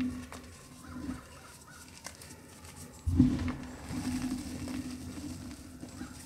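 Reformed gym chalk crushed by hand in a plastic tub of chalk powder: soft crumbling, with a louder crunch about three seconds in as a chunk gives way.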